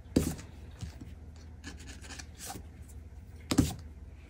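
Pen tip rubbing and scraping the coating off a paper scratch-off card in short strokes, with two sharper, louder scrapes: one just after the start and one about three and a half seconds in.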